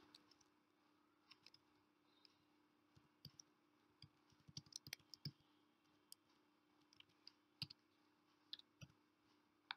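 Faint, irregular clicks of keys being typed on a computer keyboard, over a faint steady low hum.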